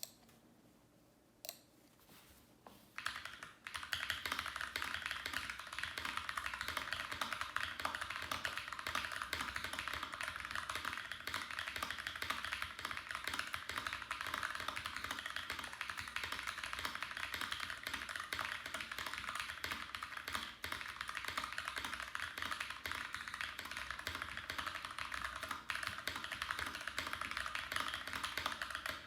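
Continuous fast typing on a mechanical keyboard, a dense run of key clicks that starts about three seconds in after a single click.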